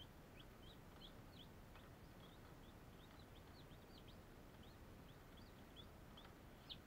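Faint, steady peeping of newly hatched chicken chicks in an incubator: short high peeps, about three a second.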